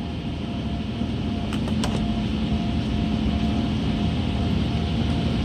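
Truck engine idling at a raised idle of about 1,000 RPM: a steady rumble with a faint steady whine, growing slightly louder.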